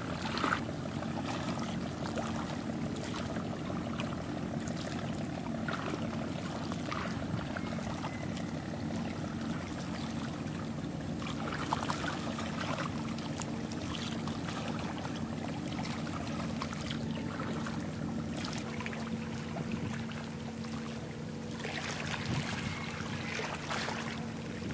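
Steady low engine hum of a passing ship, a drone of a few constant pitches, with water washing along the hull and scattered faint ticks.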